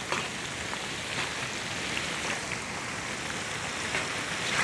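Sliced onion, ginger and garlic deep-frying in a wide pan of hot oil: a dense, steady sizzle with small crackles.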